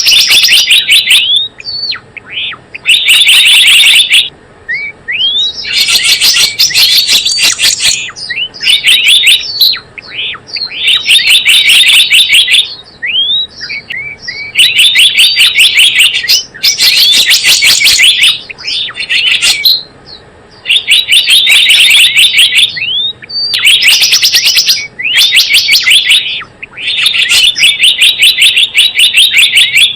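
Recorded call of the gelatik bloong, played as a bird-trapping lure. Very loud, rapid chattering trills a second or two long repeat with short pauses, and brief rising chirps fall between them.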